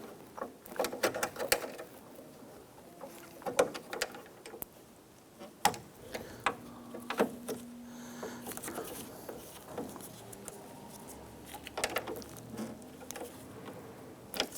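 Scattered light clicks, taps and plastic rattles as hands and a small pocket screwdriver work a plastic retaining clip off a Jeep Wrangler interior door handle's metal linkage rod, with the loose door trim panel shifting.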